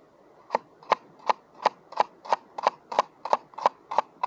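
Knife chopping vegetables, each stroke a short sharp knock on the board, evenly paced at about three strokes a second and starting about half a second in.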